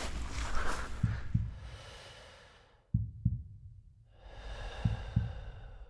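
Heartbeat sound effect: low double thumps in a slow, even rhythm, three pairs about two seconds apart, over a soft breath-like hiss. An earlier background layer fades away in the first three seconds.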